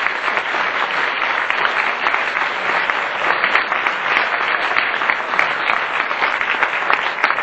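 Audience applauding: many hands clapping at once in sustained applause.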